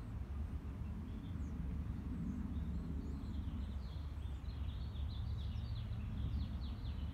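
Birds chirping in quick short calls, busiest over the second half, over a steady low background rumble.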